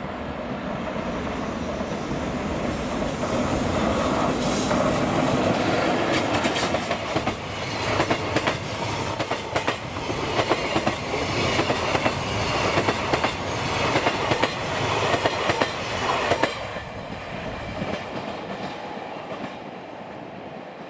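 EF65 electric locomotive hauling a container freight train past at close range, the sound rising as it approaches. The container wagons follow with a long run of wheel clicks over rail joints, which cuts off sharply about 16 seconds in as the last wagon passes, leaving a fading rumble.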